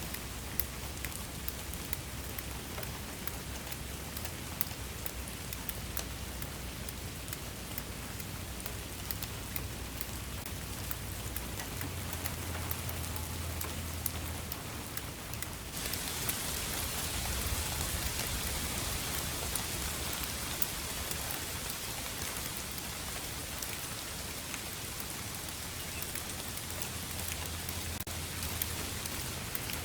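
Steady rain falling, a continuous hiss dotted with the ticks of individual drops over a low rumble. About halfway through, the hiss abruptly grows heavier and brighter and stays that way.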